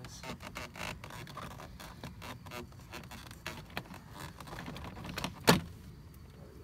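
Plastic front door trim panel of a 1998–2005 Lexus GS being shifted and lifted off the door: a run of light clicks and rustles, with one sharp knock about five and a half seconds in.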